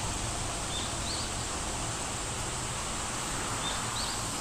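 Steady outdoor background ambience: an even hiss with a few faint, short high chirps, in pairs about a second in and again near the end.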